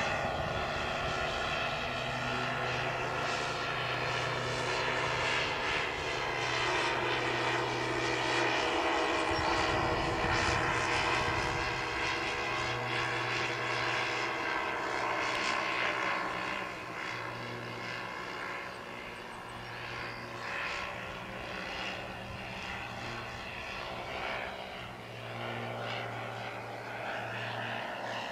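The four RCV 90 SP four-stroke engines of a large-scale radio-controlled B-17 Flying Fortress model run in flight with their propellers, a blend of several engine tones drifting slightly in pitch. The sound is louder in the first half and falls off somewhat a little over halfway through.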